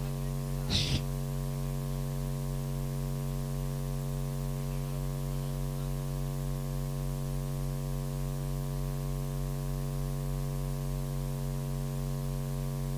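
Steady electrical mains hum: a stack of even, unchanging tones with a low buzz beneath, with one short hiss about a second in.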